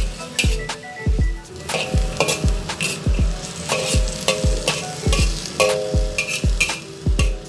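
Vegetables stir-frying in a wok with sizzling, as a spatula repeatedly scrapes and tosses them against the pan.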